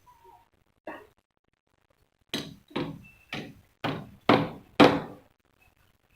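Hammer blows on construction shuttering: a single knock, then six strong blows in quick succession, about two a second.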